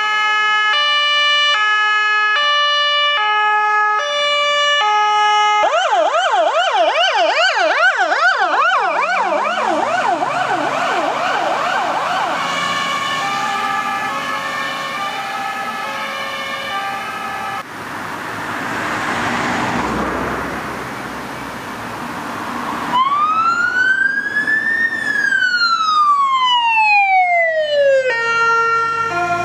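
Emergency vehicle electronic sirens from an ambulance and a paramedic response car. A high-low two-tone switches to a fast warble about six seconds in and then fades into a fainter two-tone as the vehicle moves off. After a stretch of rushing noise, a second siren sweeps slowly up and back down once, then goes back to the two-tone near the end.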